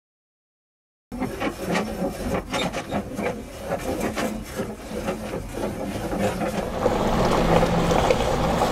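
Pickup truck running with a steady low engine hum under a busy clatter of rattles and knocks, starting about a second in and growing a little louder toward the end.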